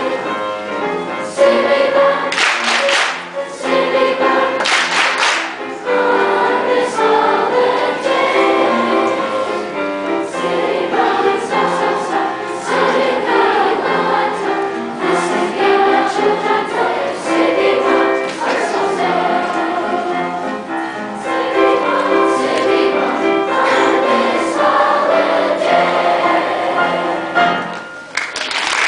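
A choir singing, many voices holding notes together; the song comes to a close near the end.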